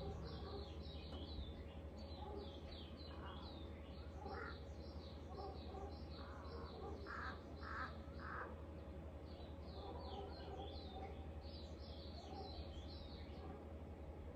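Small birds chirping in a busy, steady chatter of short falling notes, with a crow cawing three times about halfway through.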